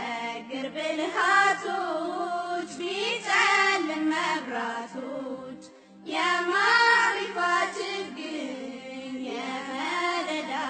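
Vocal music: a single voice singing a slow melody in long, bending notes over a steady low hum, with a short break about six seconds in.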